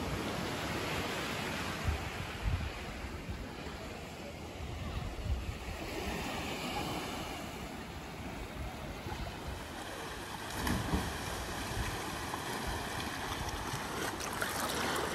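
Small sea waves washing on a beach, with wind gusting on the microphone.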